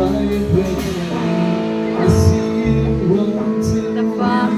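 Live band playing a song's instrumental opening: guitar over long held chords and a bass line.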